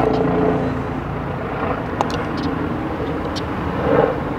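Steady low drone of a distant engine, with a few sharp clicks as cooked crab leg shell is cracked and pulled apart by hand.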